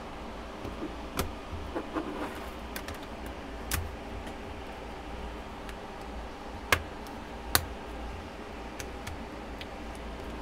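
Scattered sharp plastic clicks and snaps as a plastic pry pick works the Samsung Galaxy Tab SM-T800's screen away from its frame, the retaining clips letting go. The two loudest clicks come about two-thirds of the way through, under a second apart.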